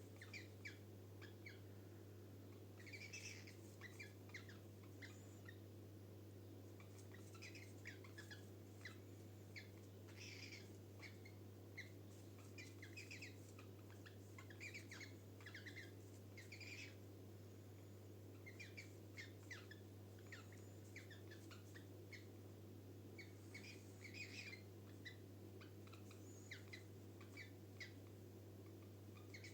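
Cockatiels chirping: short, faint calls repeated on and off, over a steady low hum.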